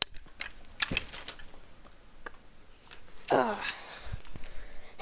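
Scattered clicks and knocks of an airsoft AK-74 rifle being handled, with a brief voice sound a little after three seconds in.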